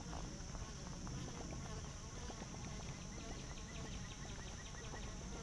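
Steady high-pitched insect chorus droning over the creek, with a faint run of rapid, even ticks, about six a second, in the middle.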